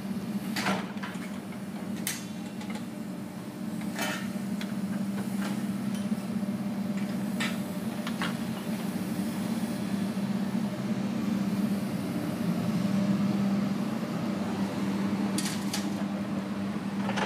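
Construction noise: a steady low machine hum, with sharp knocks and clanks every few seconds and a quick run of them near the end.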